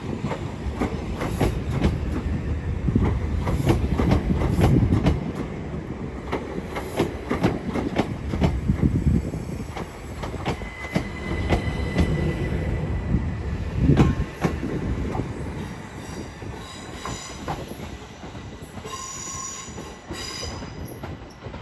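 A passenger train moving on the station tracks: a heavy rumble with wheels knocking over rail joints and points, and some wheel squeal. A brief pitched tone sounds near the end.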